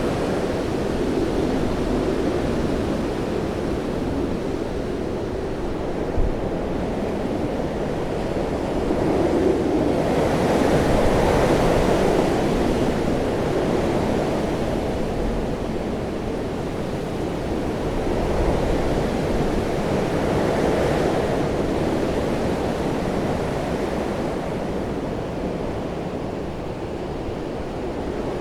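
Hurricane-force wind blowing as a dense, low rushing noise that swells in gusts, strongest about ten to thirteen seconds in and again around twenty seconds.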